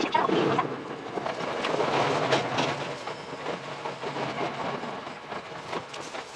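Tokyo Metro 10000 series train running on the rails: dense wheel-and-rail noise with rapid clicks, loudest near the start and again about two seconds in.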